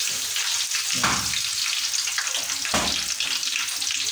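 Mustard seeds and small onions (shallots) frying in hot oil in a pan. There is a steady sizzle with fine crackling, and a few louder swells about a second in and again near three seconds.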